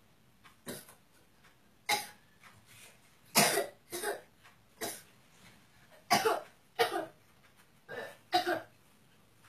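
A person coughing: a string of short, separate coughs, some coming in quick pairs, spread over several seconds.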